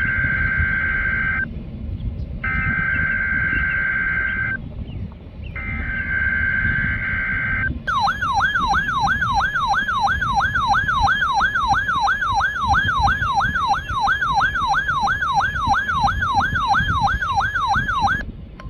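NOAA Weather Radio emergency alert for a test tornado warning. It opens with three short bursts of screechy two-tone SAME digital data with brief gaps between them. Then a loud alert tone sweeps up and down about three times a second for about ten seconds.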